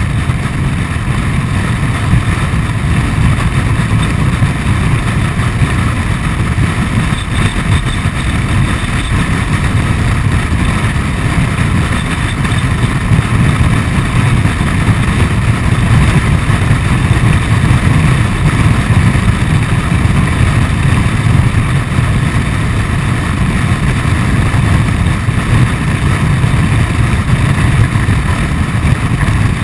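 Honda Forza 125 single-cylinder scooter cruising at a steady speed: a continuous rumble of engine and road noise, heavily mixed with wind buffeting on the camera microphone.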